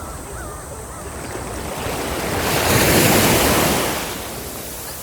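Sea waves on a beach: a steady wash of surf, with one wave surging in that swells to a peak about three seconds in and then fades away.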